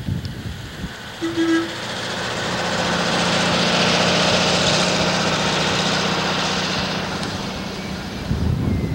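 A motor vehicle passing on the road, its engine and tyre noise swelling to a peak about four seconds in and then fading away. A short toot sounds about a second in.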